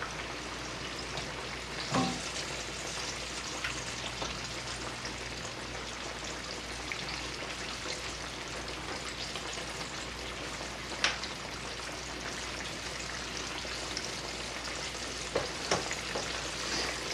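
Steady sizzle of food frying in hot canola oil in a pan on the stove, with a few light clicks and knocks.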